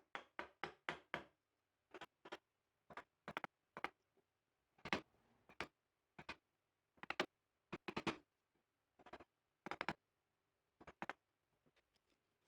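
Mallet blows on a chisel chopping a mortise in wood. A quick run of about six knocks comes first, then single knocks and pairs about a second apart.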